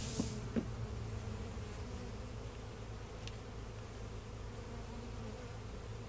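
Honeybees buzzing steadily in an opened wooden hive as its frames are handled, with two short knocks about half a second apart right at the start.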